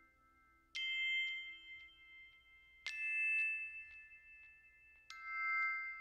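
Background music: three bright chime-like strikes about two seconds apart, each ringing on in a few high tones.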